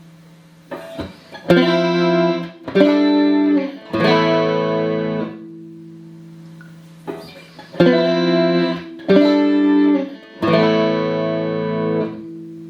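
Clean electric guitar chords played through a Boss CE-5 Chorus Ensemble pedal into a stereo pair of Roland JC-120 amps. A short phrase of struck chords ends on one left to ring and fade, and the phrase is played again about six seconds later.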